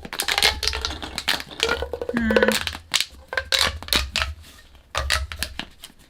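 Pop tubes, ribbed plastic fidget tubes, being stretched and squashed, giving a rapid run of clicking, crackling pops.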